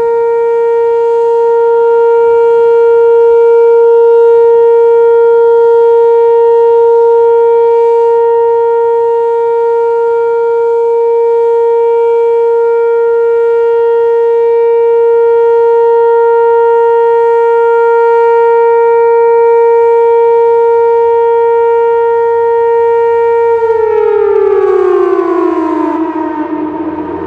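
Whelen WPS-2807 electronic outdoor warning siren sounding a loud, steady single tone during a test. Near the end it winds down, the pitch falling over about two seconds, with echoes trailing it.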